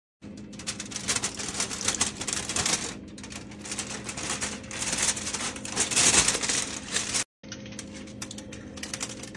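Aluminium foil crinkling and crackling as it is handled and peeled back from a baking tray, in a dense run of sharp crackles over a steady low hum. The sound breaks off for a moment about seven seconds in, then carries on.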